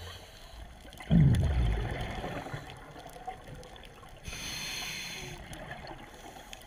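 Scuba diver breathing through a regulator underwater: a sudden low burble of exhaled bubbles about a second in, then a hissing inhale about four seconds in.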